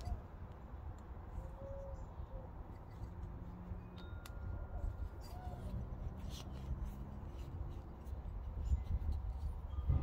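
Small pine wood pieces and dowels being handled and fitted together by hand, giving faint light clicks and rubs over a steady low rumble.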